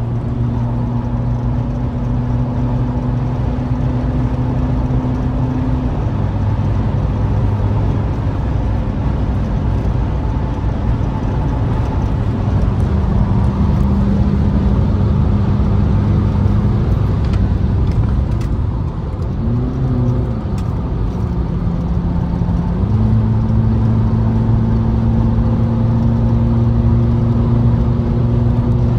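Inside a car's cabin at speed: the engine drones steadily over loud tyre and wind roar. The engine note drops about six seconds in, rises and falls briefly around twenty seconds, and steps back up a few seconds later as the driver changes speed or gear.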